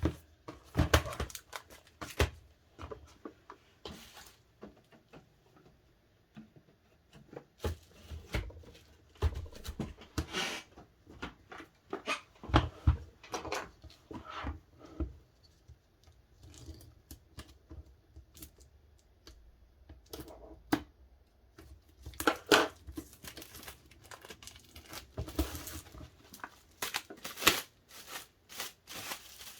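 DVD packaging being unwrapped and handled by hand: irregular tearing, crinkling and clicking of plastic and card in clusters.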